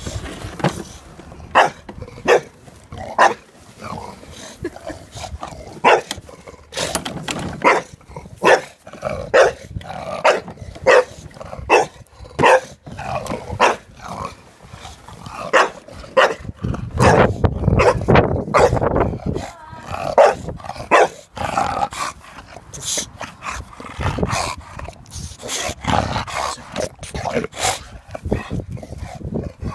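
A bulldog barking at a lawnmower in short, sharp barks about once a second, in irregular runs. A little past the middle there is a lower, rougher stretch that sounds like growling.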